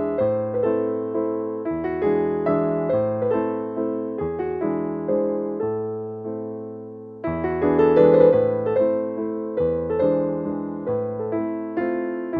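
Background piano music: a gentle melody of sharply struck, fading notes over a bass line, with a brief lull a little past the middle.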